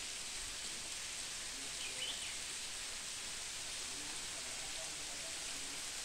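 Steady hiss of a tall waterfall's water falling and splashing down a high cliff face.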